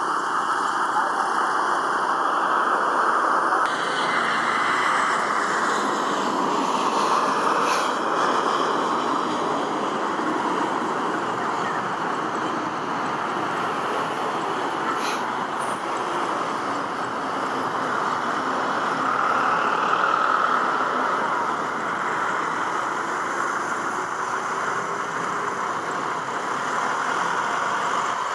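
Jet engines of a Boeing 777 airliner running at low thrust while it taxis, a steady, even jet noise that swells slightly about twenty seconds in.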